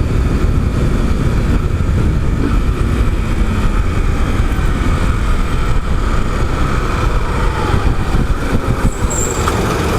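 Small single-cylinder motorcycle engine and exhaust, rumbling loudly and steadily while the bike is ridden.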